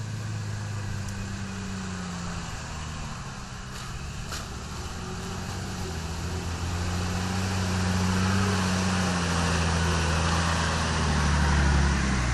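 Nissan 4x4's engine pulling through a flooded, muddy track, its pitch rising and falling with the throttle and growing louder as it nears. Water swishes and splashes around the wheels, heaviest near the end.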